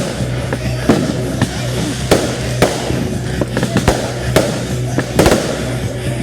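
Fireworks show: aerial shells bursting in a rapid string of sharp bangs, one or two a second, with background music playing underneath.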